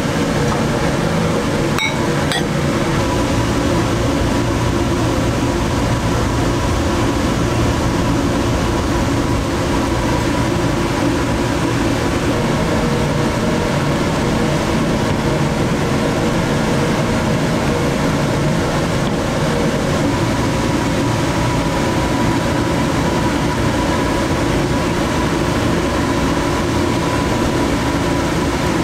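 Steady mechanical drone of commercial kitchen machinery, a constant hum with a faint held tone over it, and a couple of light clicks about two seconds in.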